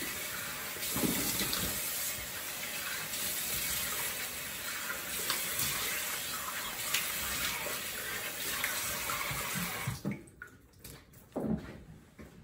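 Bathroom sink tap running steadily while lather is rinsed off the face, then shut off about ten seconds in. A couple of short knocks follow near the end.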